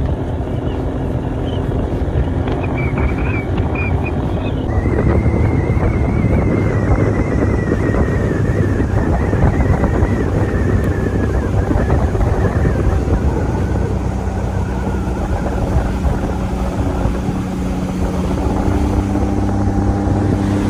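Aluminum bass boat's outboard motor running under way, with a steady rush of wind and water. The rush grows fuller about five seconds in, and a thin high whine comes in at that point and slowly falls in pitch over the next several seconds.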